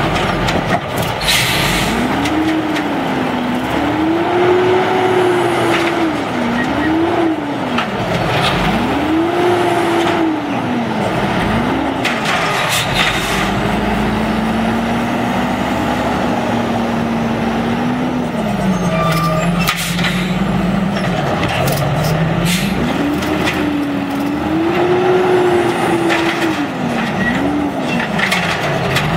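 Diesel engine of an automated side-loader garbage truck revving up and down again and again as the hydraulic arm works, with a steady stretch of running between the cycles. A few sharp clanks and hisses from the arm, the cart and the brakes.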